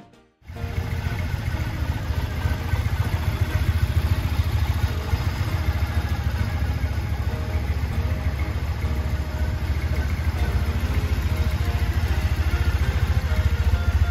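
Triumph Bonneville T100's 865 cc air-cooled parallel-twin engine idling steadily through its twin polished exhausts, a low, even idle that rises a little near the end.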